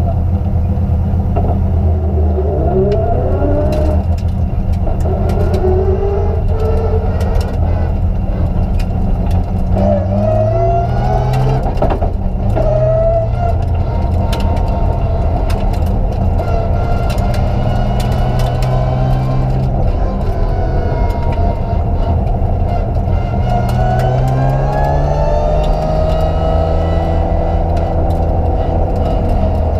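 In-cabin sound of a BMW 325 Group A rally car's straight-six engine running steadily, its revs rising and falling several times as the car accelerates and slows, with scattered short clicks and rattles.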